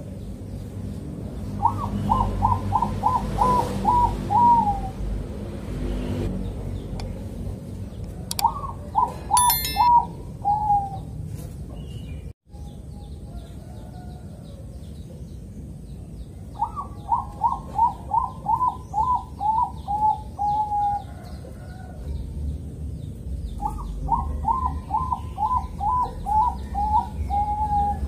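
Caged Bangkok-strain zebra dove (perkutut bangkok) singing four phrases of quick repeated coos. Each phrase opens on a higher note and ends on a longer, slightly lower note, over a low background rumble.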